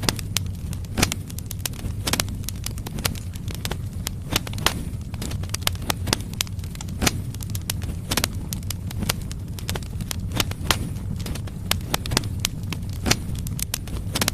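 Firewood logs burning in a fireplace, crackling and popping irregularly, several sharp pops a second, over a steady low rumble of the flames.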